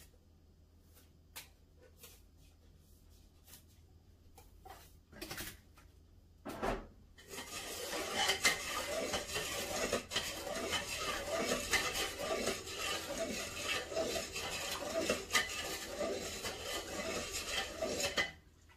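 A few light clicks and taps, then, from about seven seconds in, a spoon stirring sugar into sorrel drink in a pot, scraping and clinking continuously against the pot for about eleven seconds before it stops just before the end.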